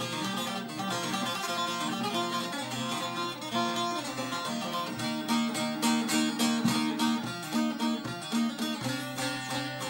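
Short-neck bağlama (Turkish saz), freshly repaired, played with a plectrum: a melody of quick plucked notes over ringing strings, the picking growing denser and sharper about halfway through.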